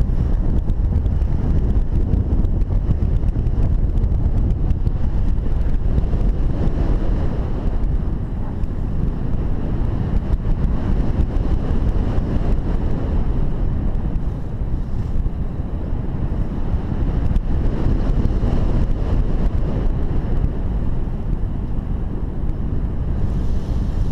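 Wind rushing over a paraglider pilot's camera microphone in flight on the descent to landing: a steady, loud, low rush of airflow that dips a little a few times.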